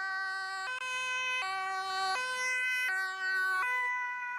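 Toy ambulance's electronic siren playing a two-tone hi-lo wail, switching between two notes roughly every three quarters of a second.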